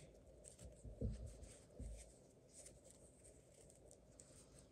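Faint soft rustling and light ticks of a crochet hook working cotton yarn, a few small handling sounds in the first two seconds, then near silence.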